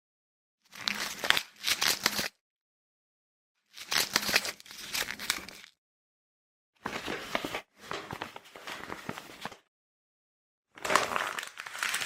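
Packing paper being folded: four bursts of crinkling and rustling, each made of two or three quick movements, with dead silence between them.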